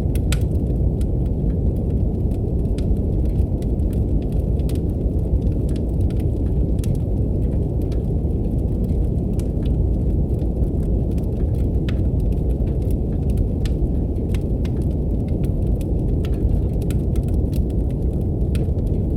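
Steady brown noise, a deep even rumble, mixed with a wood fire crackling: frequent small sharp pops and snaps scattered irregularly over it.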